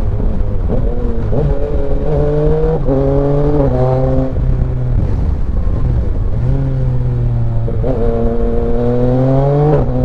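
Yamaha Tracer 900 GT's 847 cc inline three-cylinder engine under hard acceleration. The engine note climbs, drops sharply at each clutchless quickshifter upshift, and climbs again. It eases off about halfway through, then pulls up through the gears once more, with wind rush underneath.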